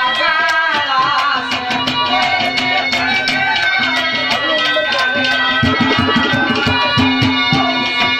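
Live Haryanvi ragni folk music: harmonium holding steady notes over a fast hand-drum rhythm, the drum strokes growing heavier and deeper in the second half.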